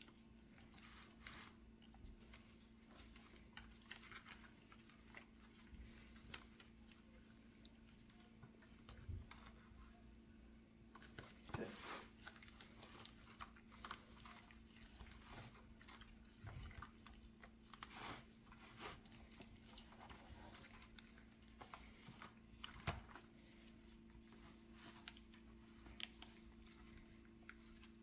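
Quiet wet squishing and scattered soft clicks and knocks of gloved hands rubbing a thick marinade into whole tilapia in a plastic bowl, with a spoon ladling the marinade out of a plastic tub, over a faint steady hum.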